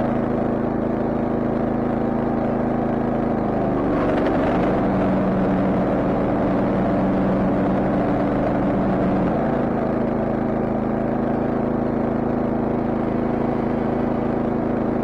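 Ferris walk-behind mower's engine running steadily; its note dips and shifts about four seconds in and settles back after about nine seconds.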